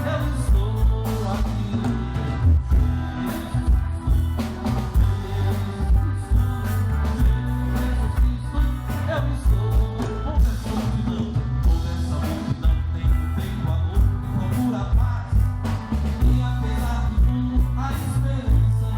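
Live band playing an upbeat song with a steady beat, with a singer's voice over drums, bass and guitar.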